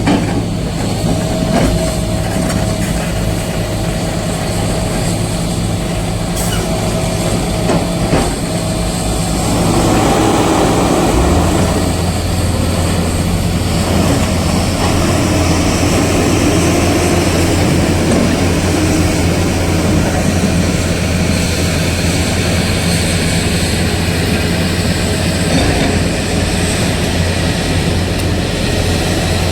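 Heavy diesel engine of earthmoving machinery running steadily and loud. About eleven seconds in, a deeper, stronger engine note comes in and holds, with a shifting mid-range sound over it for several seconds after.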